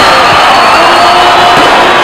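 Loud, steady roar of a huge crowd shouting and cheering, with a few held, wavering pitched notes running through it.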